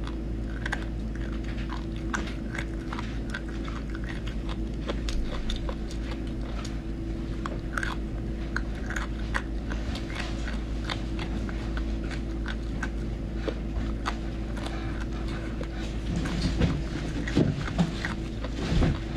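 A person chewing and biting into spicy triangle-bone cartilage close to the microphone, with many small, sharp crunchy clicks. A steady low hum runs underneath.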